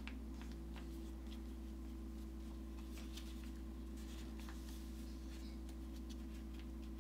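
Faint rustling and creasing of printed origami paper handled and folded by hand, in scattered soft crackles, over a steady low hum.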